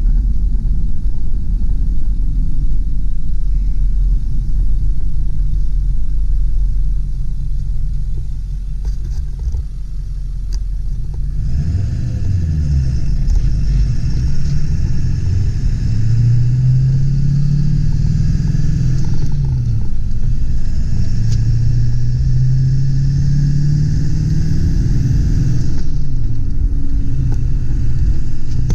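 A 1999 Ford F-250 Super Duty's 7.3-litre turbo diesel V8 running while the truck is driven, first as a steady low rumble. About twelve seconds in, the engine note begins rising and dropping several times, as when accelerating and shifting up through a manual gearbox.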